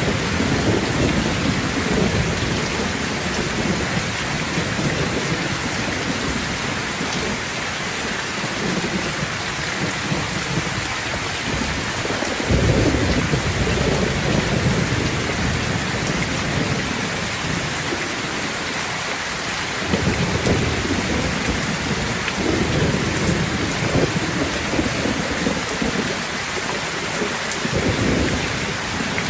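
Thunderstorm: steady heavy rain falling, with low rolls of thunder rumbling in and fading, the clearest beginning about twelve seconds in and again about twenty seconds in.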